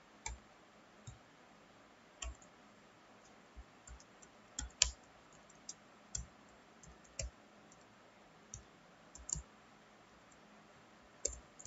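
Computer keyboard typing: slow, irregular single keystrokes, each a faint click with a dull thump beneath it, the loudest just before five seconds in.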